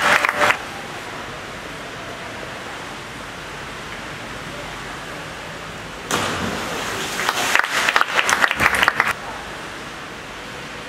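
Clapping from the crowd in a diving hall fades out in the first half second, leaving a steady hiss. About six seconds in, the noise jumps with the splash of a 10 m platform diver entering the water, followed by about two seconds of clapping that stops suddenly.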